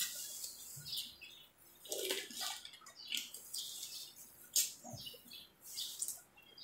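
Wet mukbang eating sounds: chewing and sucking on crab meat, with irregular short wet clicks and lip smacks.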